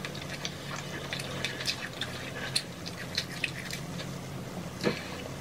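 Close-miked chewing of tacos and burritos: scattered wet mouth clicks and smacks, with one sharper click about five seconds in, over a steady low hum.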